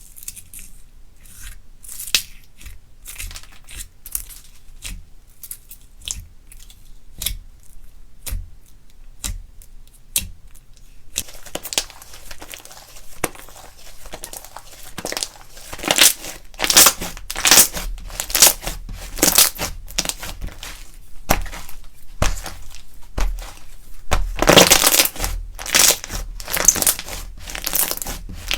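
Slime being kneaded by hand with candy mixed in, giving sticky crackles and crunches. The sounds come scattered at first, then grow dense and louder about eleven seconds in.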